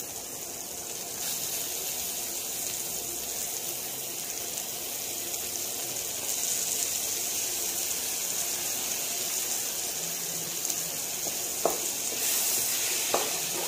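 Chopped tomatoes and onions sizzling in hot oil in a frying pan: a steady frying hiss, with a couple of short spatula knocks against the pan near the end.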